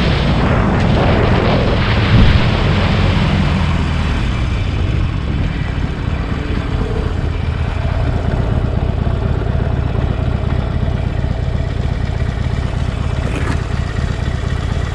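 Motorcycle engine running steadily in traffic, with one brief louder burst about two seconds in.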